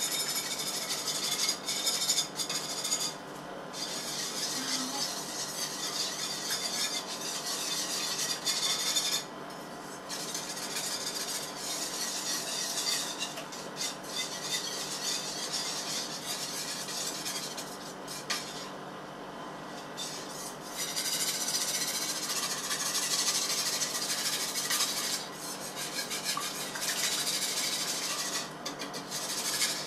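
Wire whisk scraping and rasping round a pan, beating powdered sugar into a warm mixture on the stove; steady, with a few short pauses.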